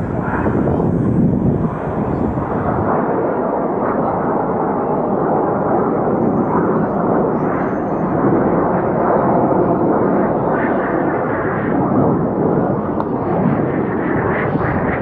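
Steady roar of the Snowbirds' CT-114 Tutor jet engines as the formation flies its display overhead, swelling slightly now and then.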